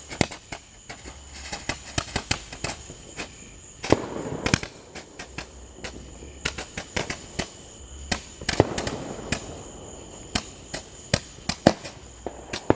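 Consumer fireworks popping and crackling: a run of sharp cracks at irregular intervals with a few louder bangs, and two short spells of hissing spray about a third and two thirds of the way through.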